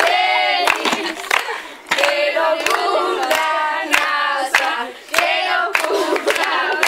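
Several voices singing together, with hand claps cutting in throughout.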